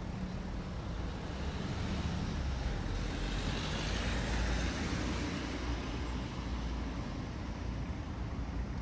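Street traffic: a steady hum of road vehicles, with one passing close and loudest about four seconds in.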